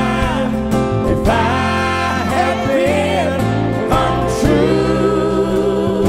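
Live band music: a male singer's drawn-out, wavering vocal notes over guitar and a steady bass.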